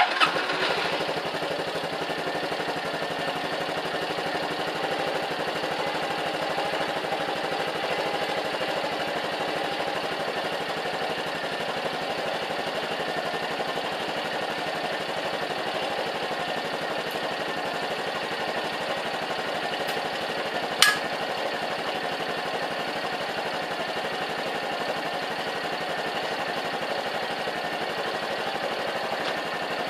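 Honda Cross Cub single-cylinder engine starting up and idling steadily, with one sharp click about 21 seconds in.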